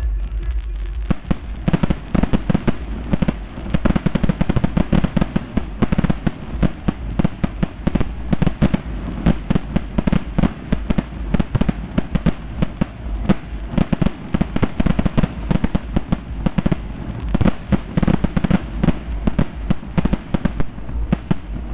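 Display fireworks: aerial shells bursting in a rapid, continuous barrage of sharp bangs, several a second, starting about a second in.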